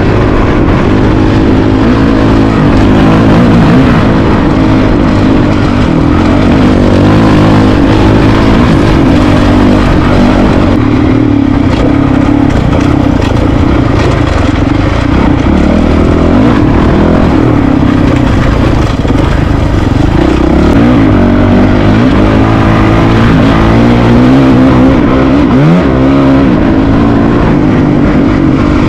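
Honda CRF450RL's single-cylinder four-stroke engine under way on a dirt trail, its pitch rising and falling with the throttle, with a quick drop and pick-up about 25 seconds in.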